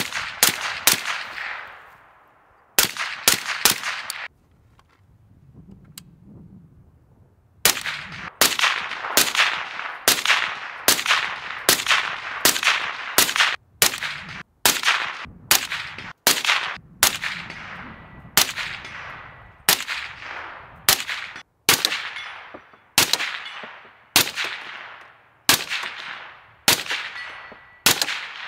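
Suppressed rifle fire from a SIG Spear LT fitted with an Energetic Armament Peak 30 silencer: each shot a sharp report with a short ringing tail. A few shots, a pause of about three seconds, then a steady string of shots a little over one a second.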